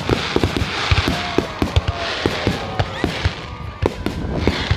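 Fireworks going off: a rapid, irregular string of sharp bangs and pops over a continuous crackle, with thin whistling tones running under them.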